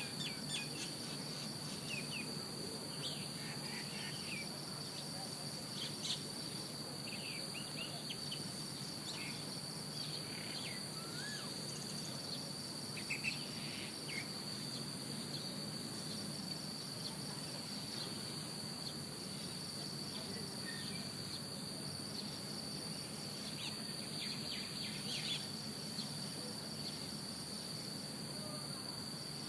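Steady, continuous high-pitched insect trill, with short high chirps scattered through it.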